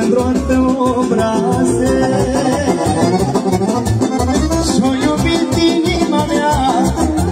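Live folk band playing instrumental dance music through a PA: a melody over a steady beat.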